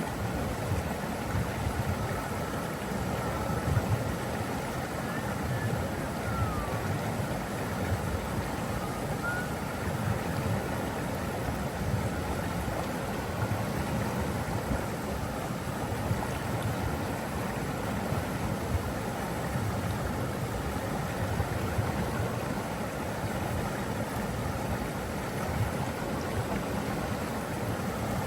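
Waterfall rushing: a steady, even roar of falling water with a strong low rumble.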